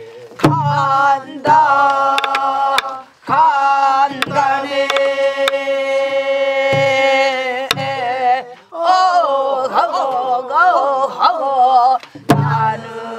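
A woman sings a Namdo folk song (southern Korean minyo) in a strained, throaty voice, holding long notes that waver and bend. Single strokes on a buk barrel drum fall between her phrases, each a low thump.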